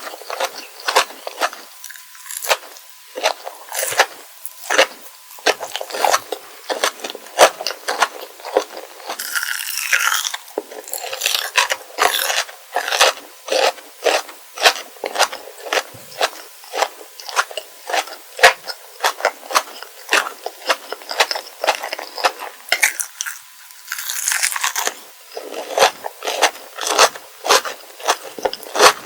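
Close-miked eating of kohakutou crystal jelly candy: a rapid, continuous series of sharp crisp crunches as the sugar-crusted shell cracks between the teeth, with chewing in between.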